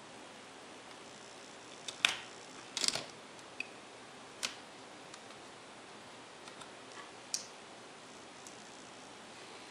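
Scattered small clicks and taps of hard plastic as a plastic pry tool and fingers work a netbook's DC jack cable loose from its motherboard. The sharpest click comes about two seconds in, followed by a quick cluster just before three seconds and single taps later on, over a faint steady hiss.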